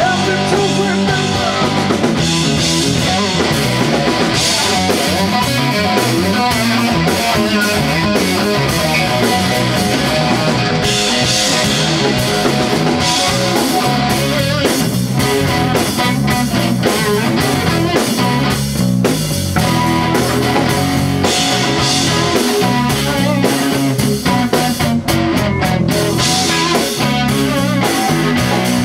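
Live rock band playing an instrumental passage: a Telecaster-style electric guitar played loudly over a drum kit.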